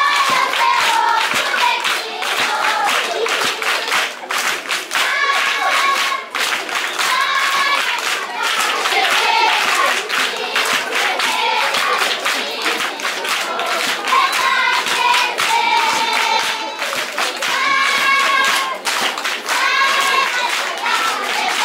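A large group of schoolchildren singing together in repeated phrases while clapping their hands along.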